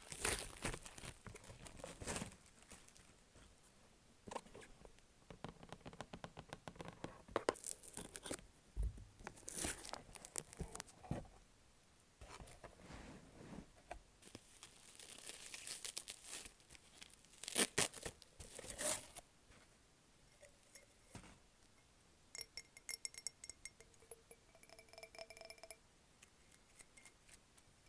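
Packaging wrap being torn and crinkled, with crackling and rustling. Near the end the glass champagne flutes are tapped several times, each tap ringing with clear steady tones.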